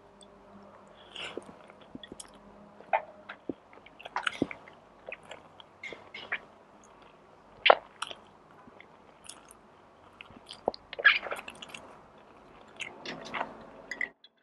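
Close-miked eating: irregular chewing and biting, with sharp mouth clicks and smacks at uneven intervals. The sound cuts off abruptly near the end.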